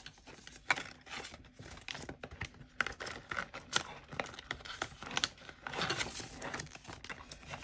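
Crinkling and rustling of polymer £10 banknotes and a clear plastic binder pocket being handled, with many small irregular clicks and taps.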